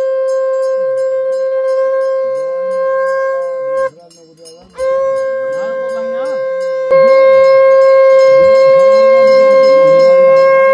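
Conch shell (shankh) blown in long steady blasts on one held note. It breaks off briefly about four seconds in and comes back louder for the last few seconds. Faint quick high ticks run underneath.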